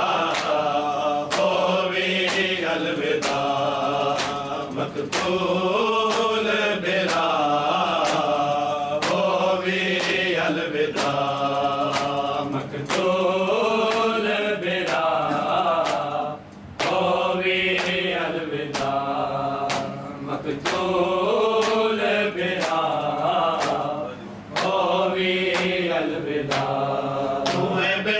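Group of men chanting a noha (Shia mourning lament) in unison, keeping a steady beat with rhythmic hand strikes on their chests (matam). There are brief breaks between sung lines.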